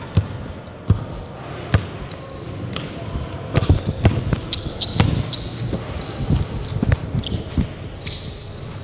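Basketballs bouncing on a hardwood gym floor during dribbling, a few bounces at first and then many in quick, irregular succession from about three and a half seconds in, with short high sneaker squeaks.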